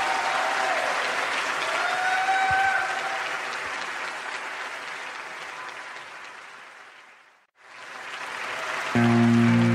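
Concert audience applauding. The applause fades almost to nothing about three quarters of the way through, then fades back up. Near the end the band starts the next song with steady guitar and bass notes.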